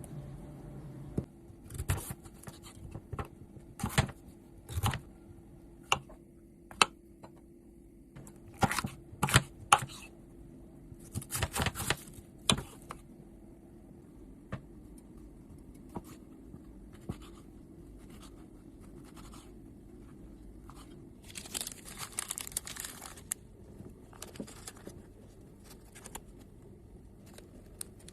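Kitchen food-preparation sounds: scattered taps, clicks and scrapes as ingredients are handled and set down, with a denser stretch of noise about 21 seconds in lasting a second or two.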